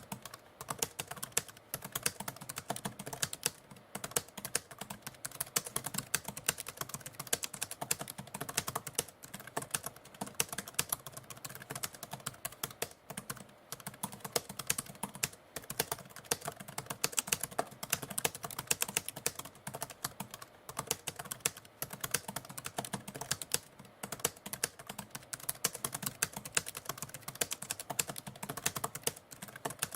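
Typewriter keys clacking in a steady, fast stream of typing, with short pauses every few seconds.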